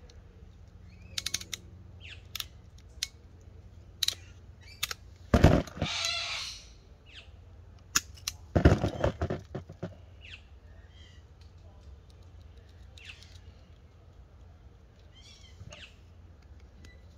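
Hand tools clicking and knocking as they are handled and set down on a cardboard box, with a quick run of clicks from a ratchet crimper near the start and two louder knocks about five and nine seconds in. Birds chirp faintly in the background later on.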